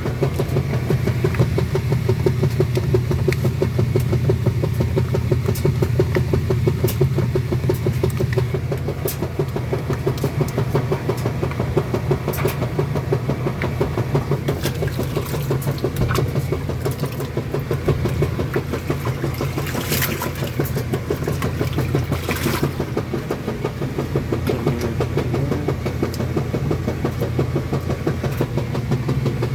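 Kenmore washing machine running its wash cycle: a steady motor hum with a fast, even pulsing. Two brief swishes come about two-thirds of the way through.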